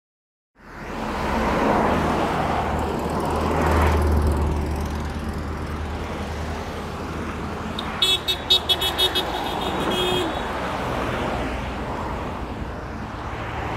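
Road traffic, with cars and trucks driving past on a busy road in a steady wash of engine and tyre noise. About eight seconds in, a short run of rapid high-pitched beeps sounds for about a second.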